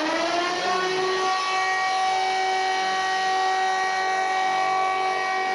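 Emergency alert alarm sounding like a siren. Its tones rise in pitch over about the first second, then hold steady at several pitches over a hissy noise.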